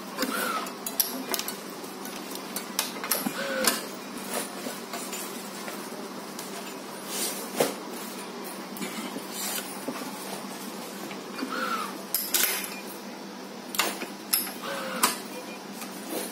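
Badminton racket being strung on a stringing machine: string pulled and woven through the frame and across the mains in irregular swishes, with sharp clicks and clinks from the machine's clamps and fittings.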